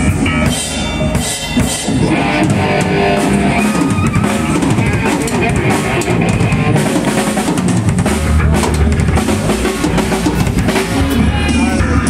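Live band playing loudly: a drum kit with bass drum and snare, and an electric guitar.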